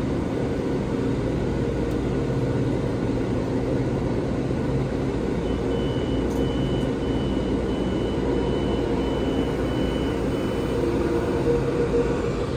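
Metro-North train running, a steady rumble with a constant low hum. From about halfway in, a series of about eight short, high beeps sounds at an even pace.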